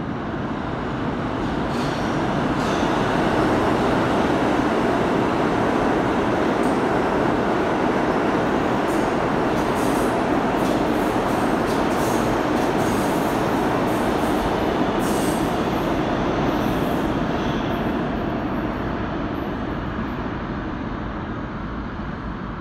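New York City subway train passing through the station without stopping. Its rumble swells over the first few seconds, holds, then fades away near the end, with brief high metallic squeaks from the wheels in the middle of the pass.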